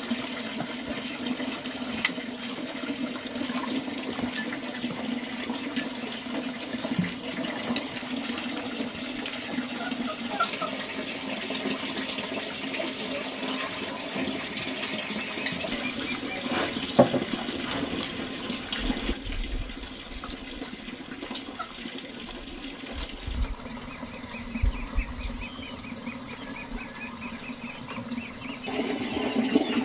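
Steady rush of running water, with scattered light clicks and knocks. A fine, fast ticking comes in near the end.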